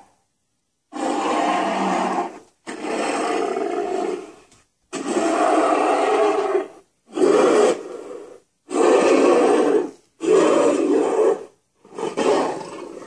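Recorded King Kong roars played back from the diorama's mp3 sound effects: about seven roars in a row, each a second or two long, with short dead-silent gaps between them.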